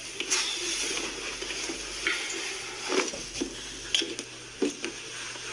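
Irregular soft knocks, footsteps and rustling of a person moving about a small room.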